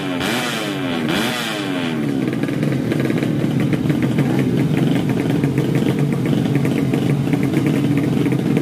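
Tuned 130cc underbone drag bike engine revved in quick rising-and-falling blips for about two seconds, then held at a steady speed with a rapid, even ticking over the note.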